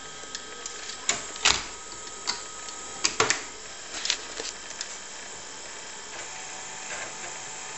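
Irregular mechanical clicks and clunks from a TRS-80 Model 4P's 5.25-inch floppy drive as a disk is loaded and the computer boots TRSDOS 6.2 from it, over a steady hum. The loudest clunks come about a second and a half and three seconds in.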